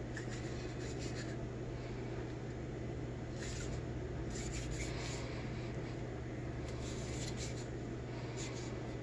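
Scattered soft rubbing and scuffing as an 8-inch meat cleaver with a wooden handle is handled and set into its cardboard box, over a steady low hum.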